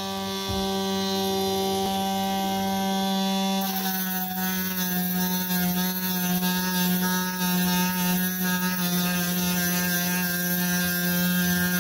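Dremel rotary tool with an aluminum oxide grinding stone spinning at a steady high whine. About four seconds in the stone bites into the steel of the knife's choil, and a gritty grinding hiss joins the whine, which wavers under the load as the choil is smoothed.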